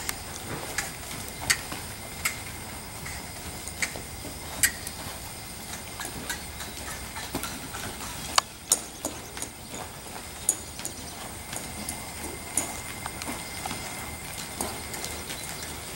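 Hoofbeats of a reining mare loping on soft arena dirt, her hind feet without sliding plates. They come as a run of irregular sharp clicks and soft thuds, with two of the loudest just past the middle.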